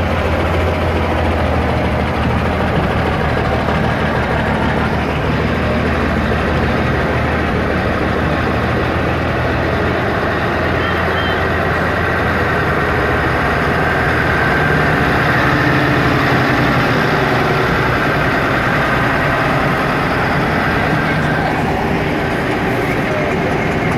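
Diesel engines of vintage semi-truck tractors, Macks among them, running steadily at low speed as the trucks pass one after another.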